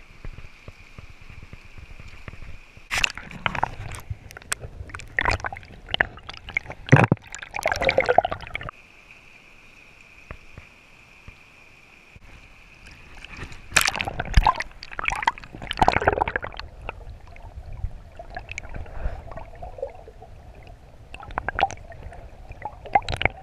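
Water splashing and sloshing in bursts as a hooked brown trout is played, landed and released in a shallow stream: a run of splashes early on, a quieter stretch, then another run of splashes and gurgling near the end.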